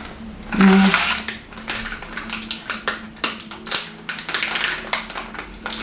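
A brief hum of the voice, then the irregular crinkling and clicking of a plastic bag of Airheads Bites candy being handled and rummaged through.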